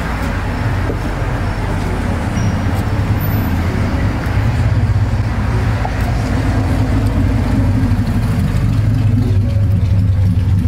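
Steady low rumble of a motor vehicle engine running, growing a little louder about four seconds in.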